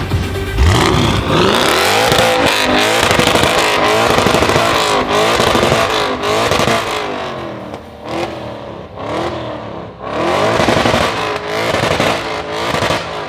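Decatted Audi RS6 C7's twin-turbo V8 through a Milltek exhaust, loud, revving hard and accelerating with its note rising and dipping repeatedly. It drops back with sharp crackles from the exhaust around the middle, then surges again before easing off near the end.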